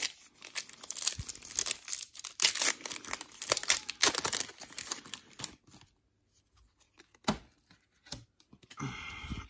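Foil wrapper of a 2020 Donruss Racing trading-card pack being torn open and crinkled for about five and a half seconds. After that it is mostly quiet, with one sharp tap a little past seven seconds.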